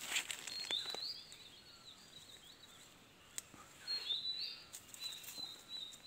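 A bird singing two high phrases, the first about a second in and the second near the middle, each rising onto a note and holding it. Under them are rustling and occasional snaps of undergrowth as young fern fronds are picked by hand.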